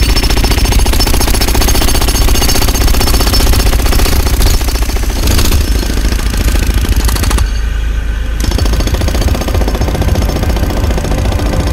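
Pneumatic jackhammer breaking up concrete, loud rapid hammering that starts abruptly, with a short easing of the hammering about seven and a half seconds in before it carries on.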